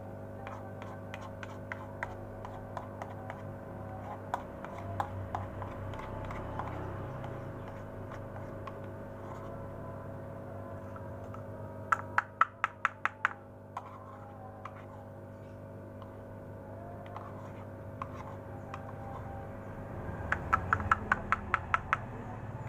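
A spoon knocking against a small plastic cup as it scoops and taps: scattered single taps, then two quick runs of about eight to ten sharp taps, the first about midway and the second near the end. A steady low hum runs underneath.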